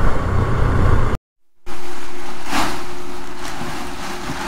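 Motorcycle riding noise, a loud low engine and wind rumble, cuts off abruptly about a second in. After a half-second gap it is followed by a steady hiss with a faint constant hum that slowly fades.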